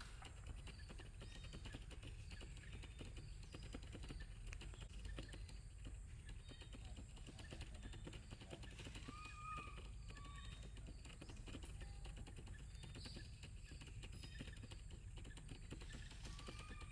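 Faint outdoor ambience: a low steady rumble with many light, scattered ticks, and a few brief high chirps about nine seconds in and again near the end.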